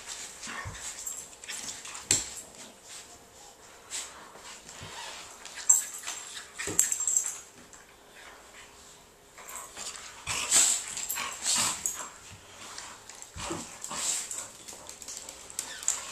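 Two dogs play-wrestling on a hardwood floor: irregular scuffling and mouthing noises with dog whines and yips, and scattered sharp knocks, busiest about halfway through and again a few seconds later.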